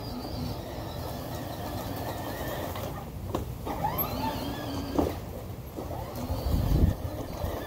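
Battery-powered Power Wheels ride-on toy quad driving over grass: its electric motors and gearboxes whining, with the plastic wheels rumbling. A sharp knock about five seconds in, and the rumble swells about a second later.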